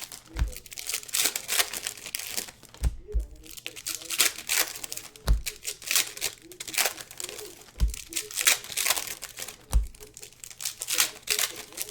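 Plastic wrapping crinkling and rustling in repeated bursts while being handled, with a few soft low thumps.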